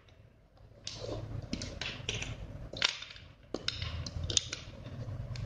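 Plastic LEGO bricks clicking and rattling under the hands as yellow bricks are pressed onto the model, starting about a second in with several sharp snaps.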